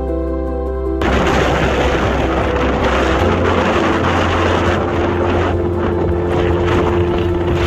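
Background music cuts off about a second in, giving way to loud rushing wind on the microphone over a steady motor drone with a held mid-pitched tone.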